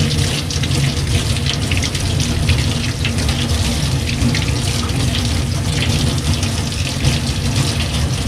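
Kitchen tap running steadily, the water splashing over hands rubbing a peeled potato and into a stainless-steel sink.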